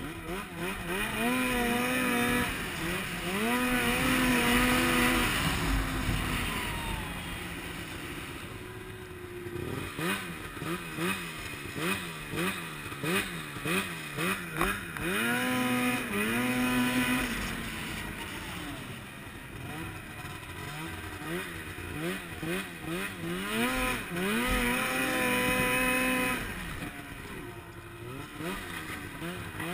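500 cc Arctic Cat snowmobile engine revving up and down. There are long full-throttle pulls near the start, in the middle and near the end, and a run of quick throttle blips, about two a second, in between.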